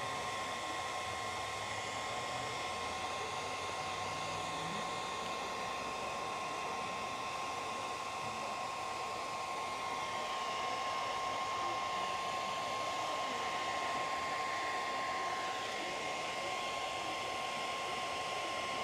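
Steady machine noise: an even rushing hiss with a constant high-pitched whine, like a motor or blower running, with faint voices underneath.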